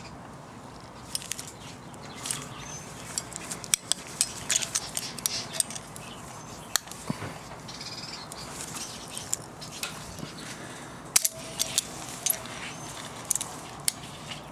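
Thread tap being turned by hand with locking pliers in an air-injection port of a Toyota 2ZZ-GE aluminium cylinder head. It cuts new threads with irregular metallic clicks, ticks and scrapes, in clusters, with a louder sharp click a little past the middle.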